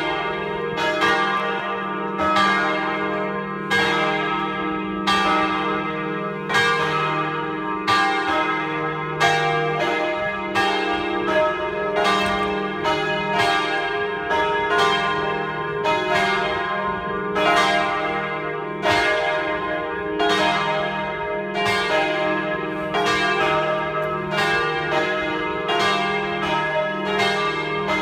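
Peal of three bronze church bells tuned E-flat, F and G (1250, 900 and 650 kg, cast by the Jules Robert foundry of Nancy), rung by an electronic mechanism. The strokes fall about one and a half a second in an uneven, overlapping pattern over a continuous hum.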